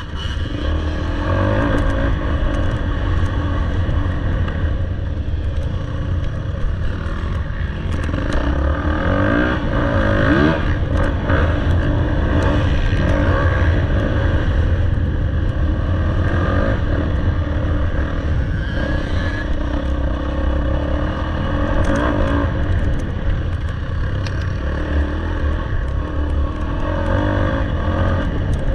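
Dirt bike engine running under load off-road, its pitch rising and falling as the throttle is worked, over a heavy low rumble.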